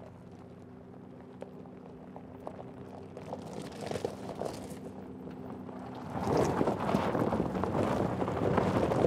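Mercedes G580 electric G-Class driving on a gravel track, its tyres crunching on loose stones. The crunch grows louder as it approaches and swells sharply about six seconds in as it passes close by.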